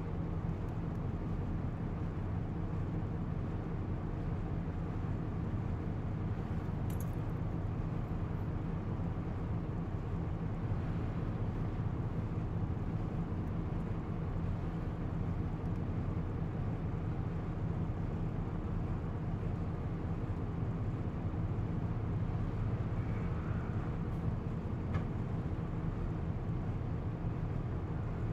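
Isuzu U-LV324K bus's V8 diesel engine running at a steady, even pitch, heard from inside the bus, with a couple of faint clicks from the cabin.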